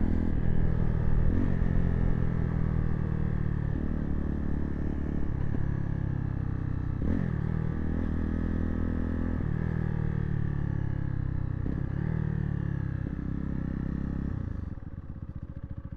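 Zontes T2 350 motorcycle's single-cylinder engine running while the bike is ridden, its pitch slowly easing down. It drops to a quieter level near the end.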